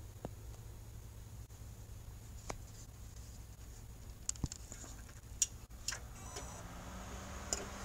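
Seagate ST2000DX001 2 TB hybrid hard drive (SSHD) making sharp clicks at irregular intervals while reading, over the steady low hum of the running computer. The owner links the clicking to a failing drive, with device errors and blue-screen crashes. A steady low tone joins about six seconds in.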